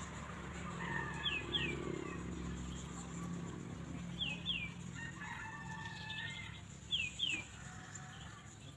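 A rooster crowing twice, about a second in and again around five seconds in. A small bird calls over it in quick pairs of high, falling chirps, three times.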